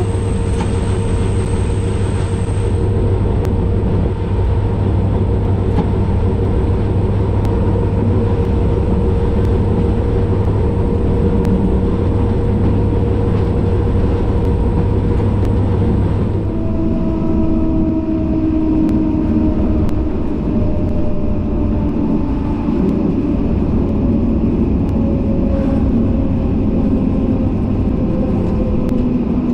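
Inside the cab of an SNCF BB 67400 diesel-electric locomotive: the engine and drive run steadily over the rumble of the wheels on the rails. About halfway through, the steady engine note eases and whines falling slowly in pitch take over as the train slows for a station.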